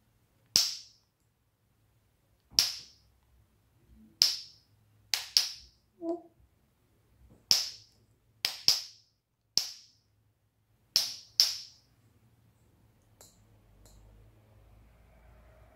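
A series of about eleven sharp, loud clicks at uneven spacing, several coming in quick pairs, with a short low tone about six seconds in and two faint clicks near the end.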